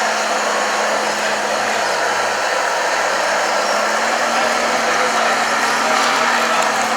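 Small electric motors of radio-controlled model construction machines whirring steadily. A constant hum underneath rises slightly in pitch about four seconds in.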